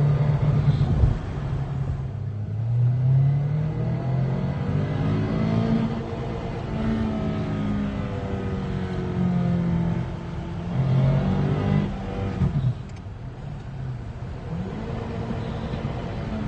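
Mazda 3's four-cylinder engine revving up and down several times, an engine with rod knock being run hard.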